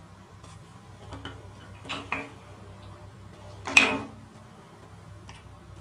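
Handling noise from assembling a homemade slingshot: the leather pouch, rubber strips and frame being worked in the hands, with a few light clicks about one and two seconds in and one louder sharp snap or knock just before four seconds in.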